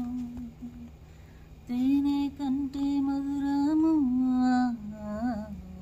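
A woman humming a slow tune in long held notes that rise, fall and waver in pitch, with a pause about a second in and shorter gliding notes near the end.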